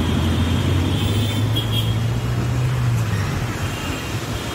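Low, steady drone of a motor vehicle engine amid street traffic noise, fading away a little after three seconds in.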